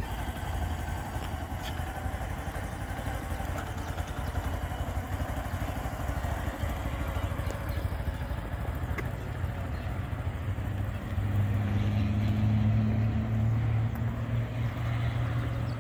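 Small motorcycle engine running at low speed while the rider weaves between cones, a steady low hum that grows louder about two-thirds of the way through.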